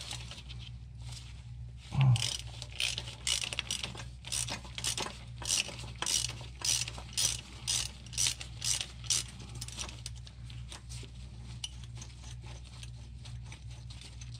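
Hand ratchet backing out a bolt on the shifter bracket: a knock about two seconds in, then a run of ratcheting strokes, about two a second, that fades out near the ten-second mark.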